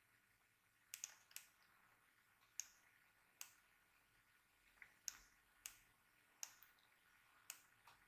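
Computer mouse clicking: about a dozen faint, sharp clicks at irregular spacing, some in quick pairs, as an on-screen chart is clicked and dragged.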